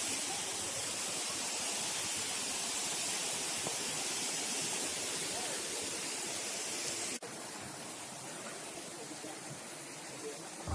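Steady rushing of a mountain waterfall or stream, a dense even hiss; about seven seconds in it drops suddenly to a quieter level and continues.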